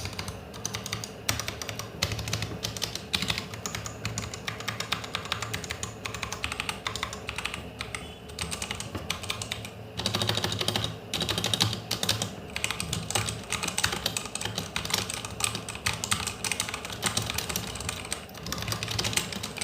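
Fast, continuous typing on a stock Ant Esports MK1300 V2 mechanical keyboard: a dense run of keystroke clacks that sound hollow, from the empty space left inside the unmodded case. The typing gets louder and busier about halfway through.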